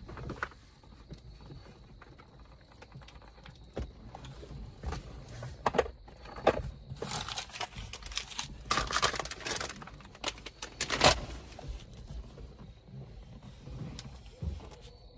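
Rummaging by hand: irregular rustling, light clatter and sharp clicks of small objects being moved about, busiest in the middle with the loudest click a little before the end.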